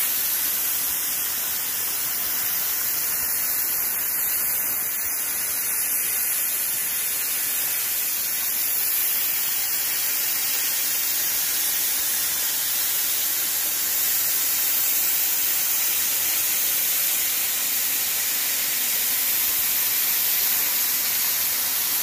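CNC plasma cutter's torch cutting steel plate: the arc and its compressed-air jet make a steady hiss.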